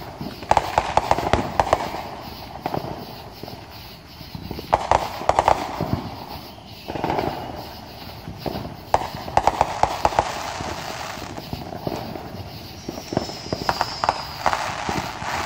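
Aerial fireworks going off, with clusters of rapid crackling pops every few seconds and a thin whistle near the end.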